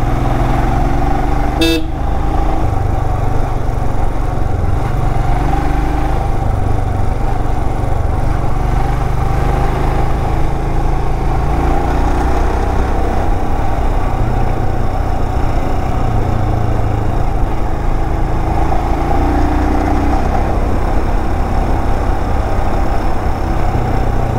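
Royal Enfield Himalayan 411's single-cylinder engine running steadily as the motorcycle climbs a hill road, heard from the rider's own bike. A brief sharp sound comes about two seconds in.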